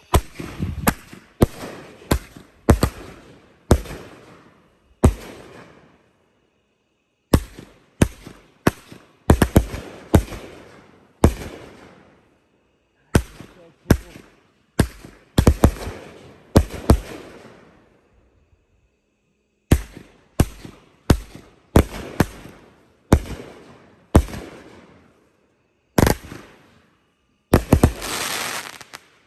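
A 500-gram consumer firework cake firing a volley of shots. Each is a sharp report trailed by a fading crackle, fired in quick clusters with pauses of a second or two between them, and it ends in a dense, sustained crackling burst.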